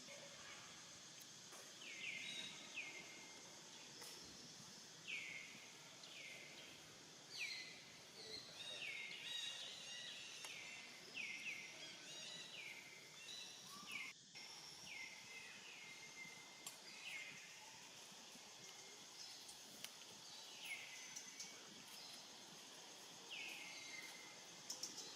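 Faint outdoor ambience with a steady high hiss, over which an animal gives many short high calls, each dropping quickly in pitch, in clusters with a pause in the middle.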